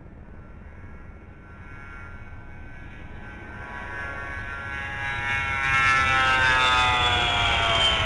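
Fairchild Republic A-10 Thunderbolt II's twin TF34 turbofan engines whining at takeoff power as it rolls down the runway. The sound grows steadily louder, and the high whine slowly drops in pitch over the last few seconds.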